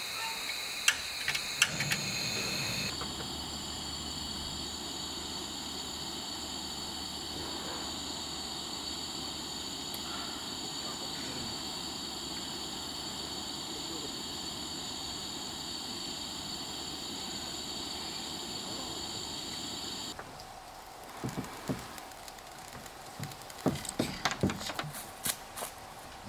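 A camping stove being lit: after a few sharp clicks, a steady hissing flame with a low rumble runs for about seventeen seconds and then cuts off suddenly. A few scattered clicks follow near the end.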